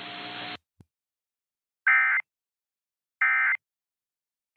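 Weather-radio hiss with a faint steady hum cuts off about half a second in. Then come the Emergency Alert System's SAME end-of-message data tones: short, harsh buzzing bursts, two of them about 1.3 s apart, with a third starting at the very end. These bursts mark the end of the alert broadcast.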